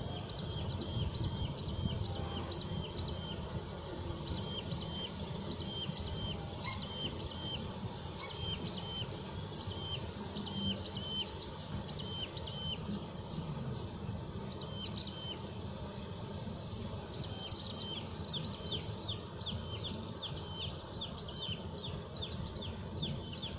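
Small birds chirping over and over, short high calls about two a second, growing busier near the end, over a steady low rumble of open-air background noise.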